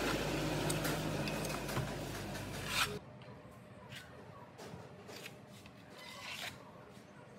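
Rubbing and scraping of hand work on metal or plastic parts over a steady low hum for about three seconds, then the hum cuts off abruptly and only scattered light clicks and scrapes remain.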